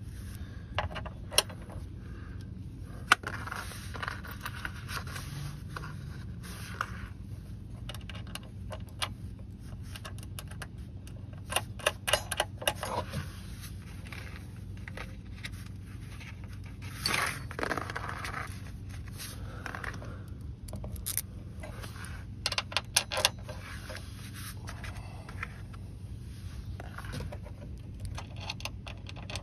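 Small steel bolts, washers and nuts clinking and scraping against a metal running-board mounting bracket as they are fitted by hand, in scattered light clicks with a few short clusters of rapid clinking.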